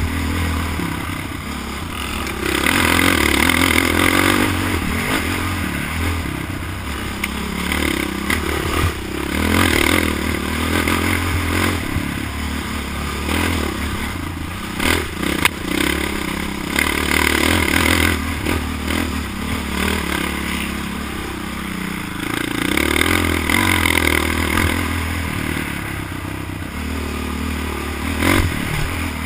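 ATV (quad) engine heard from on board, revving up and easing off in waves every few seconds as it is ridden, with rattling and scraping from the machine over rough ground and a few sharp knocks about halfway through.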